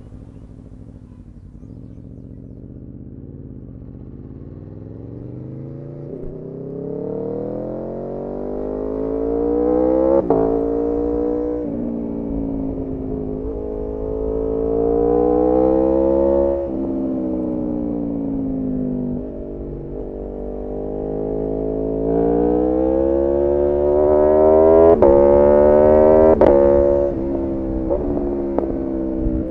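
Aprilia RSV4 Factory's 1100 cc V4 engine accelerating under load. A low, quieter rumble for the first few seconds, then the pitch climbs and drops sharply at each upshift, about five gear changes, loudest near the end.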